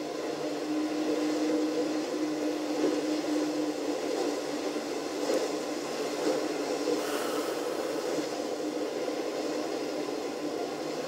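Steady engine drone from a ship at sea, with a low hum that drops away about four seconds in.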